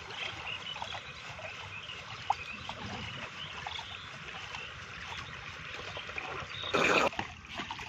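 Shallow muddy water sloshing as people wade and grope for fish in a drying pond, with birds chirping. A short loud burst of noise about seven seconds in.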